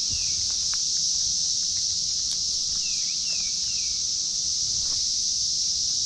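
Chorus of Brood X periodical cicadas: a steady, high, unbroken drone. A few short falling chirps and faint ticks sound over it.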